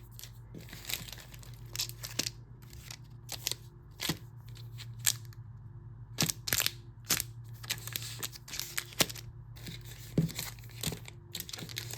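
Foil booster-pack wrappers and plastic packaging crinkling and rustling as they are handled, in scattered short bursts of crackles, over a steady low hum.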